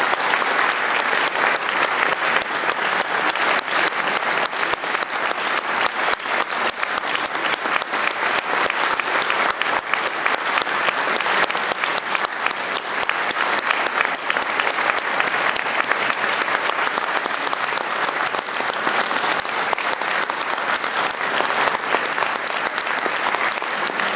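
Sustained applause from a large audience: many hands clapping at once, unbroken and even in level.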